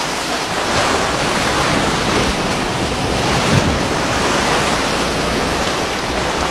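Loud, steady rush and splashing of churning sea water, with wind on the microphone, as tuna and bonito break the surface feeding on a school of baitfish. A thump stands out about three and a half seconds in.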